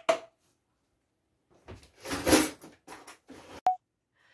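Kitchen handling noise: a few irregular knocks and rustles, ending in one sharp clink.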